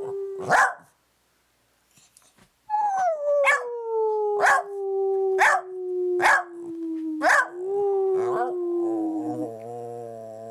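Australian shepherd barking sharply about once a second over a long, slowly falling howl, after a short quiet gap near the start. Near the end it changes to a wavering, grumbling howl.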